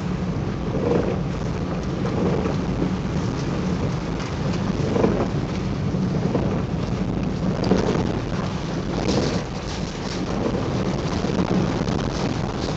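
Steady low rumble of a car's road and engine noise inside the cabin while driving, with the crinkling rustle of a shiny PVC rain suit as the wearer moves.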